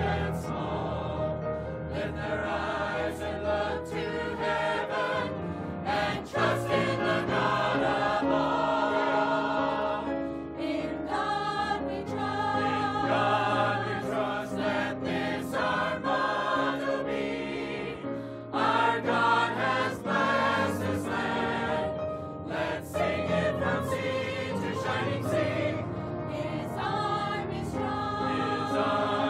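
Mixed church choir of men and women singing a hymn together, with sustained notes in several parts.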